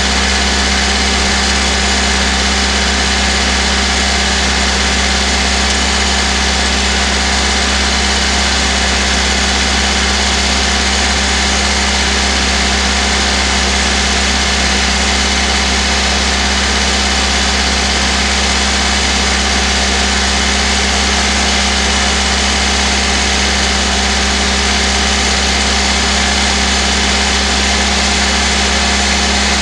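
VAZ-2109 four-cylinder petrol engine heard from inside its own engine bay, running steadily at idle while it warms up, with an even hum and no change in revs.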